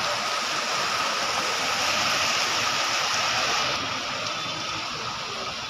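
Heavy rain pouring steadily onto a street, a dense even hiss; about four seconds in it thins and drops a little.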